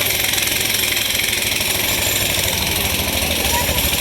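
Train in motion: a steady rumble with a fast, rattling pulse and an even hiss over it.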